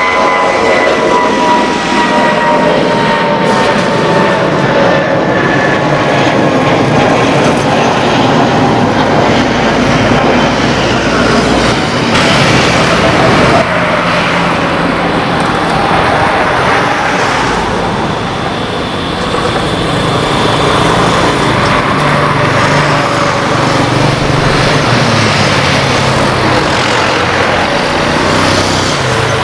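Jet airliner engines at takeoff power, loud and steady throughout. First an Airbus A320 climbing out, its engine whine slowly falling in pitch as it passes. Then a Boeing 737-800's engines at takeoff thrust on the runway, with a deeper rumble in the later part.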